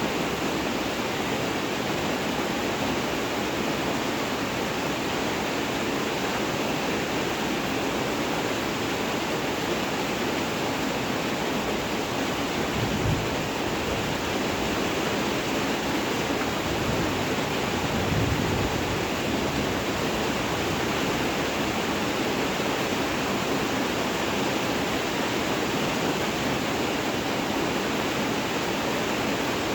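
Steady rain, an even hiss with no let-up. Two brief low thumps come about halfway through and again a few seconds later.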